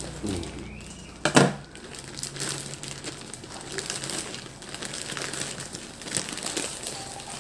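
Plastic courier bag being cut open with scissors and pulled apart by hand, crinkling and rustling irregularly, with one loud sharp noise about a second and a half in.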